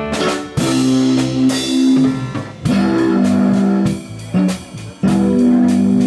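Live instrumental music led by guitar: chords struck and left to ring for a second or so each, with short dips between them.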